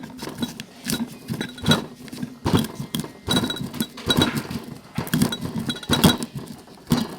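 Garlic, black pepper and salt being ground to a paste with a mortar and pestle: irregular knocks and grinding scrapes of the pestle, roughly one stroke a second.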